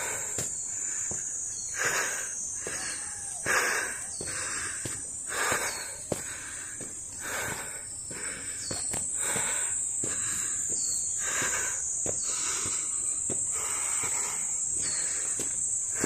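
Footsteps on a stone path with heavy, tired breathing surging about every two seconds, over a steady high-pitched drone of insects.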